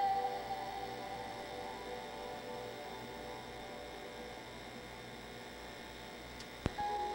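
A song's last held note fades out, leaving a steady electrical hum with hiss between soundtrack songs; near the end a single sharp click, and the next piece of music begins.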